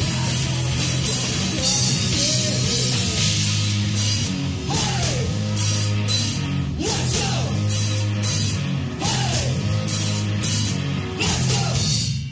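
Live rock played by a trio of electric guitar, bass guitar and drum kit at full volume, with steady held bass notes under cymbal wash and sliding guitar or vocal lines.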